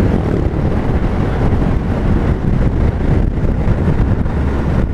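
Suzuki Hayabusa's inline-four engine running at a steady cruise, under heavy wind buffeting the microphone.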